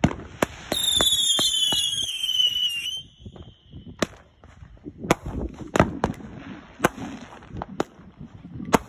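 Fireworks: a whistling firework gives a falling whistle for about two seconds near the start, with small pops under it, then a string of sharp bangs about a second apart as shells go off.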